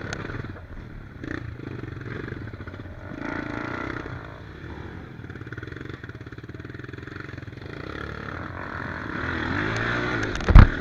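Dirt bike engine running and revving up and down on a rocky climb, with some clatter, and a single loud thump near the end.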